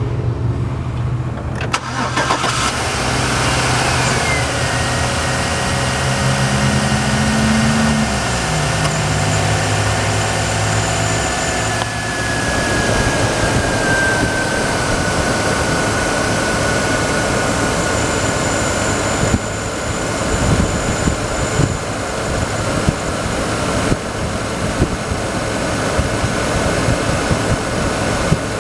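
Chevrolet Avalanche's V8 engine, heard from the open engine bay, starting about two seconds in and then running at idle. A faint high whine falls slowly in pitch as it runs.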